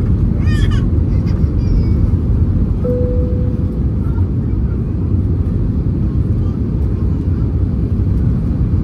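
Steady cabin roar of an Airbus A320-200 on its landing approach, heard inside the cabin beside the wing: engine and airflow noise, heaviest in the low end. A brief high voice-like sound comes about half a second in, and a short steady tone about three seconds in.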